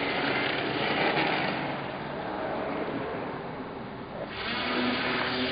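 Small brushless outrunner motor driving the propeller of an EPP foam model plane: a rushing hiss that eases off in the middle, then the motor's pitched whine comes in about four and a half seconds in.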